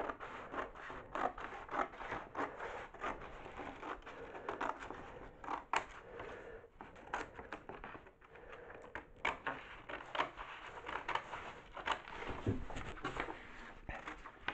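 Scissors snipping through drawing paper: an irregular run of short, crisp cuts, a few each second.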